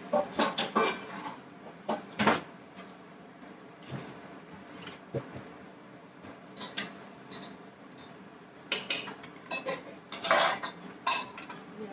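A wooden spatula knocking and scraping against a steel pot while mutton curry is stirred, in scattered clinks and knocks, loudest about two seconds in and again near the end.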